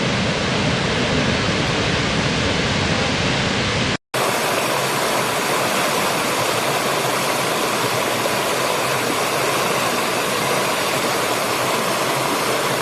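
Waterfall rushing: a steady, loud rush of falling water. About four seconds in it breaks off for a moment and comes back brighter and hissier, with less low rumble.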